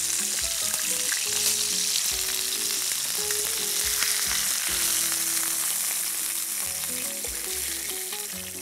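Beef tenderloin steaks sizzling in hot oil in a frying pan as they are lifted out one by one; a steady hiss that eases slightly near the end.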